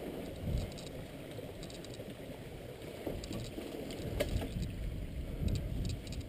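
Cross-country mountain bike rolling over a wooden footbridge and down a dirt singletrack, heard from an onboard camera: steady tyre and wind rumble with light rattles and clicks from the bike, and a sharper knock about four seconds in.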